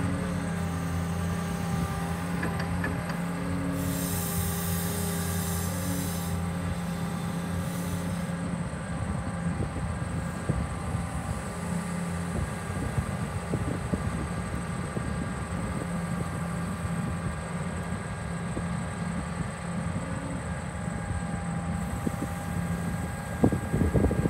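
Caterpillar 312E L tracked excavator's diesel engine running steadily while the boom, arm and bucket are worked, with a brief hiss about four seconds in. A louder, uneven rumble comes in near the end.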